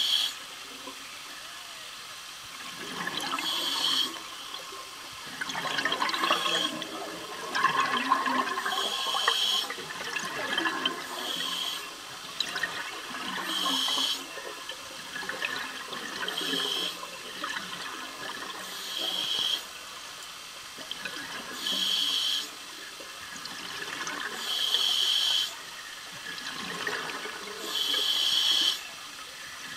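Scuba regulator breathing underwater: a short hissing burst of exhaled bubbles about every three seconds, with bubbling and gurgling between breaths.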